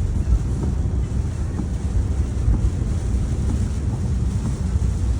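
A steady low rumble of wind buffeting the microphone, fluttering unevenly.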